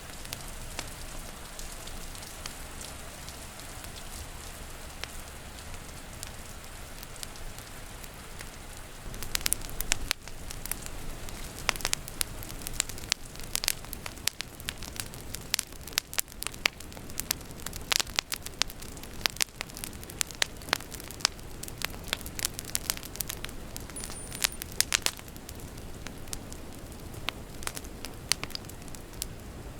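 Wood fire crackling and popping over a steady hiss of rain. A dense run of sharp pops starts about a third of the way in and thins out near the end.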